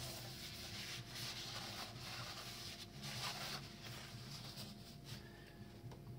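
A cloth rubbed around the inside of a freshly honed cylinder bore of a Peugeot 1.2 PureTech three-cylinder block in several scrubbing strokes, wiping out stone grit and metal shavings left by the hone; the rubbing dies down after about three and a half seconds.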